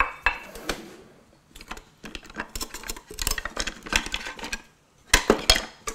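Kitchen utensils clattering and rattling in a drawer being rummaged through, in a quick, uneven run of clicks with a few louder knocks about five seconds in.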